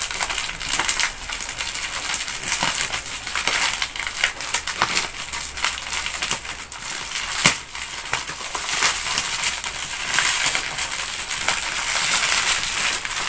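Plastic courier mailer bag being torn open and crinkled by hand: a continuous crackling with many small snaps, and one sharper snap about seven and a half seconds in. Near the end the plastic-wrapped contents rustle as they are pulled out.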